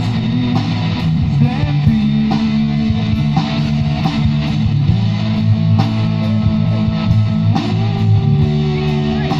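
Live rock band playing amplified: electric guitar and bass over drums keeping a steady beat.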